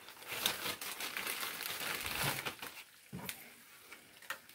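Thin plastic bag crinkling as it is handled, with fried Oreos being coated in powdered sugar inside it, for about two and a half seconds. A few light knocks follow near the end.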